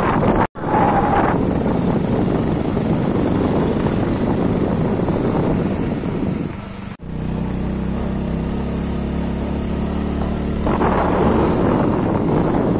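Wind rushing over the microphone of a moving motorcycle, with the engine running underneath. After a cut about seven seconds in, the engine's low steady hum is clearer beneath the wind.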